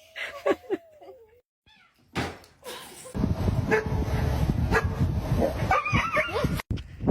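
A cat meows once, a falling call about a second long, with a few light knocks. Then a louder stretch of rough, rumbling noise takes over, with a few short animal calls in it, and it cuts off suddenly near the end.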